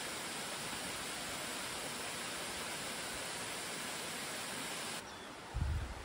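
Steady, even rush of falling water from a waterfall, which cuts off abruptly about five seconds in. A quieter outdoor ambience follows, with one short low thump near the end.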